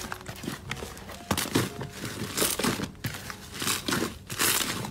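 Green slime being stretched, pulled and squeezed by hand, making crinkly, crackling sounds in about five separate bursts.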